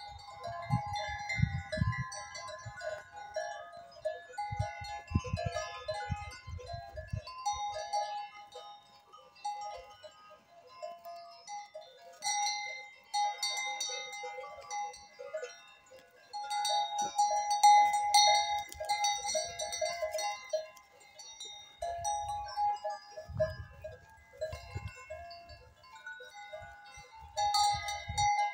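Livestock bells on a grazing herd of goats and sheep, clanking and ringing irregularly as the animals move and feed, many bells overlapping. Wind gusts rumble on the microphone at times, near the start and again in the last few seconds.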